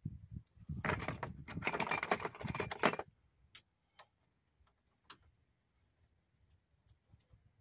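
Ratchet wrench clicking rapidly for about two seconds as a wheel-hub bearing mounting bolt is backed out, then a few scattered light ticks.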